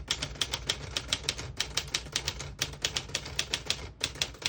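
1952 Smith-Corona Silent manual portable typewriter being typed on, its typebars striking in quick, even succession, about five or six keystrokes a second with a couple of brief pauses.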